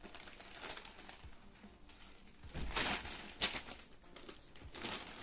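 Rustling and handling of a folded saree being opened out to show its colour, with a sharp tap about three and a half seconds in.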